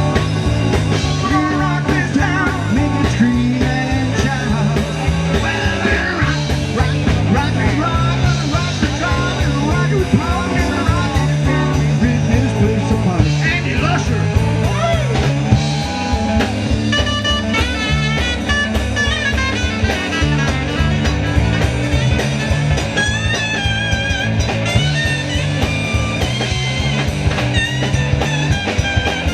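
Live rock band playing an upbeat number with drums and bass keeping a fast steady beat. A lead electric guitar plays bent, wavering notes through the second half.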